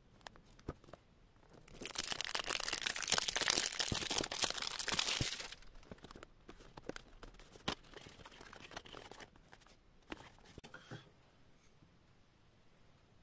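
Cellophane wrapping being torn and crinkled off a perfume box: a dense crackling burst lasting about four seconds, followed by softer scattered clicks and rustles as the cardboard box is handled and opened.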